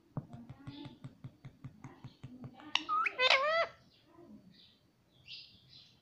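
Indian ringneck parakeet tapping its beak on a hard plastic surface, about four or five quick taps a second. About halfway through it gives one loud call, rising and falling in pitch.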